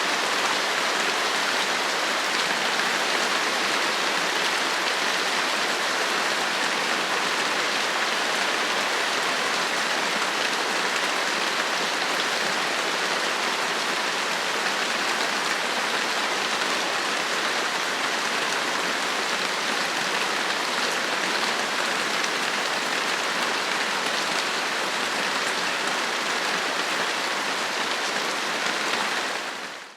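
Light rain falling steadily, an even hiss of drops that fades out near the end.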